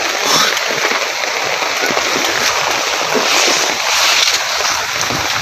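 Floodwater rushing steadily, with splashing as people wade through it.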